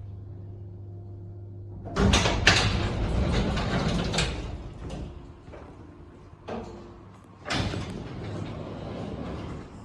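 Lift doors sliding: a steady low hum, then about two seconds in a loud rumbling slide of the doors lasting a couple of seconds, with shorter door sounds again near the end.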